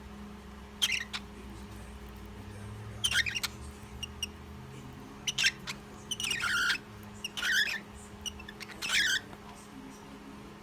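Cockatiel giving a series of short, high chirping calls, about six spread over ten seconds, presented as its mating call, over a steady low hum.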